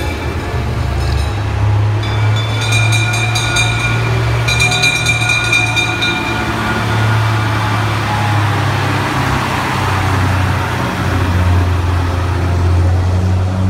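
Vintage fire engines' engines running with a steady low drone as they drive past one after another. A fire bell is rung in quick strokes in two bursts during the first six seconds.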